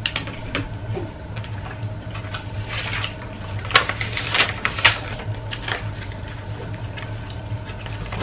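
Table eating sounds: a spoon and fork clinking and scraping against plates and bowls, with a sheet of paper handled and rustled in the middle, over a steady low hum.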